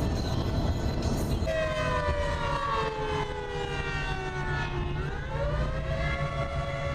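Outdoor tornado warning siren wailing over a steady low rumble. The siren comes in about a second and a half in, slides slowly down in pitch, then climbs back up and holds steady near the end.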